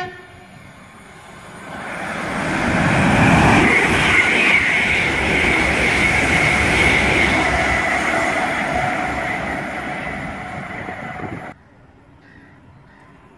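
An electric multiple-unit passenger train passes close by at speed. Its rumble and rail noise build over a couple of seconds and carry a steady high whine. The noise cuts off suddenly near the end.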